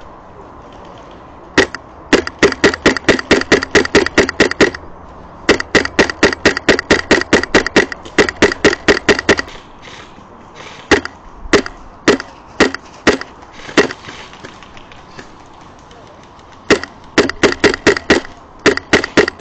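Airsoft rifle firing BBs in rapid strings of shots lasting a few seconds each, with a handful of single shots around the middle.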